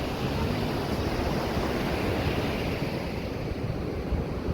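Sea waves washing onto the shore, with wind gusting over the microphone in an uneven low rumble.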